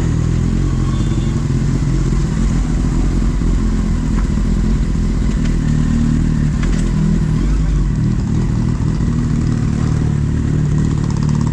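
Kawasaki Z800 motorcycle's inline-four engine running, with the pitch of its low tones shifting a little through the middle as the throttle changes.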